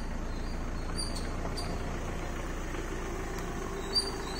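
Hyundai Creta's engine running steadily at idle as the car creeps backwards in reverse, moved on the clutch alone without accelerator. A short tap sounds near the end.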